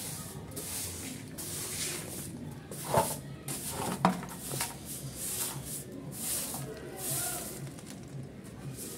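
Soft grass broom sweeping a dusty concrete floor in short, repeated swishing strokes, about one a second. There are two sharp knocks about three and four seconds in.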